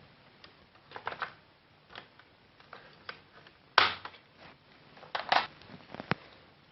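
Plastic snap clips of an ASUS X453 laptop's top case (palmrest) clicking and cracking as the case is pried off the base. The clicks come irregularly, the loudest about four seconds in and a quick cluster just after five seconds.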